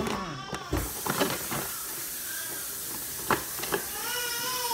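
Metal spoon scooping cake batter from a plastic mixing bowl, with a few light knocks and scrapes, over a steady hiss that sets in with a thump about a second in. A child's voice is heard briefly near the end.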